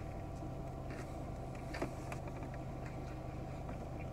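Chewing a bite of fried chicken sandwich: a few faint clicks over a steady low hum.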